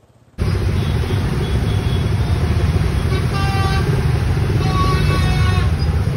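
Dense road traffic of scooters and motorbikes, engines running in a steady roar that cuts in just under half a second in, with vehicle horns honking twice, about three and a half and five seconds in.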